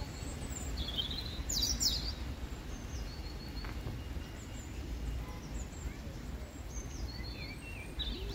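Birds chirping and calling in short high notes, a quick burst of them about a second and a half in and more scattered through the rest, over a steady low outdoor rumble.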